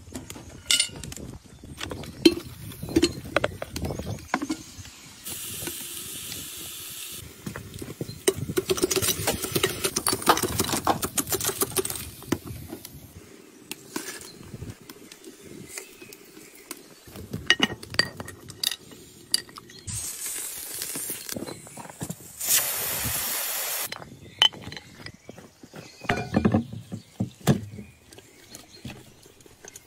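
Clinks and knocks of metal cookware as an Afghan cauldron pressure cooker, its lid and the dishes are handled, with several short spells of hissing, the loudest about three-quarters of the way through.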